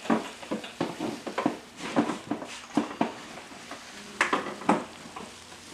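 An irregular run of light clicks and knocks, about two or three a second, as car trim and fasteners are handled by hand, with two louder knocks a little past four seconds in.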